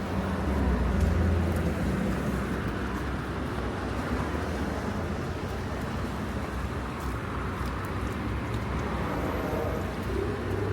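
City street traffic: cars running past with a steady low engine rumble and road noise.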